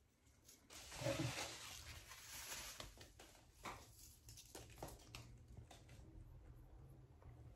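Faint rustling and light clicks of small white packing pieces being handled, with a brief low hum about a second in.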